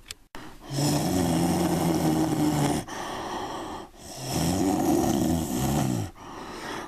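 Monster growl sound effect for a giant ant: two long, low growls about two seconds each, the second bending up and down in pitch.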